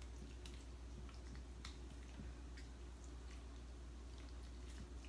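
Faint soft squelches and light clicks of a plastic spatula scooping thick chicken pot pie filling out of a plastic bowl, over a low steady hum.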